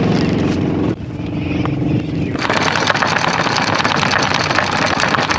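A boat engine idling, then from a little over two seconds in a fast, dense clatter of anchor chain running through the windlass as the anchor goes down.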